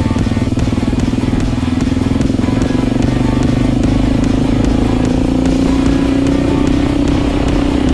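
Suzuki DR-Z dirt bike's single-cylinder four-stroke engine running under way, its pitch climbing slowly as it gains speed, with background music laid over it.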